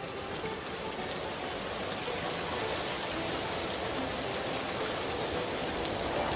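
Rain sound effect: a steady hiss of rain falling on a surface, getting slightly louder over the first couple of seconds.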